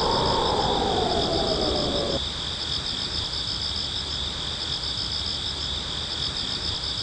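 A steady night chorus of insects, high-pitched and finely pulsing without a break. Over it, a lower tone slides up and back down, then cuts off suddenly about two seconds in.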